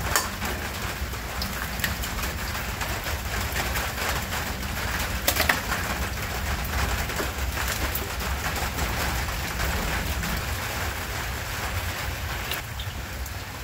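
Heavy rain falling steadily, with a deep fluctuating rumble underneath. A few sharp clicks come near the start and about five seconds in.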